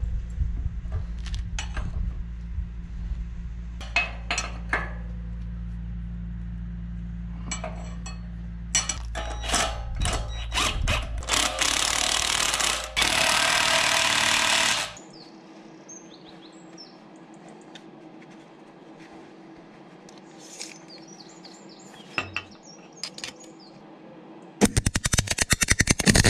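Ratchet and spanner clicks and knocks while a replacement roller is bolted onto a bale wrapper, over a steady low hum, with a few seconds of loud, rough power-tool noise about halfway. Near the end a MIG welder starts crackling.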